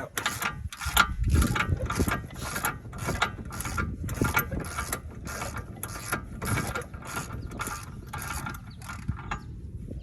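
Hand ratchet wrench clicking in quick, even back-and-forth strokes, a little over two clicks a second, stopping near the end.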